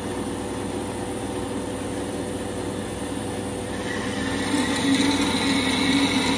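ENCO vertical band saw running steadily just after being switched on, its motor and blade making a continuous machine hum. From about four seconds in it grows louder with higher ringing tones as a wooden board is fed up to the blade.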